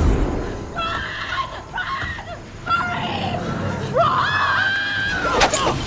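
A young woman screaming in terror: a few short frightened cries, then one long, high scream from about four seconds in.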